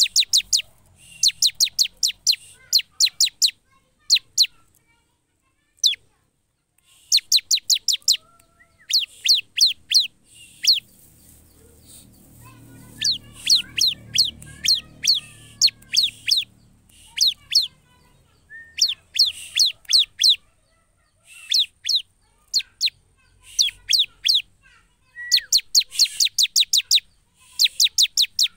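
Bar-winged prinia (ciblek) singing: quick runs of about five to ten sharp, high, clipped notes, repeated again and again with short pauses between runs.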